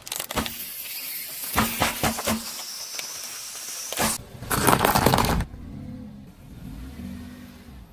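Disposable plastic lighters cracking and popping under a slowly rolling car tyre: scattered sharp cracks, then a loud dense stretch of crunching about four seconds in. After about five and a half seconds it gives way to a quieter low steady hum.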